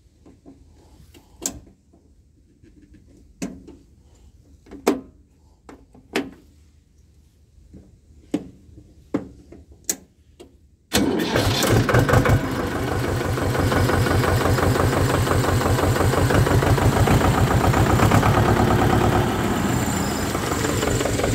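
A few sharp clicks and knocks, then about eleven seconds in the HMT 2522 tractor's diesel engine starts suddenly and runs steadily with an even, rapid beat.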